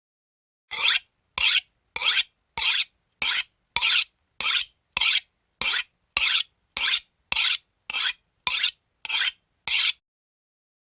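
A knife blade drawn repeatedly along a sharpener: about sixteen short, even rasping strokes, a little under two a second, stopping about ten seconds in.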